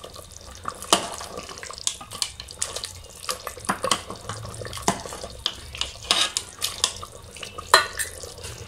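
Steel ladle stirring goat trotters in gravy in a pressure cooker pot: irregular clinks and scrapes of metal on metal, with the liquid sloshing. The sharpest clink comes near the end.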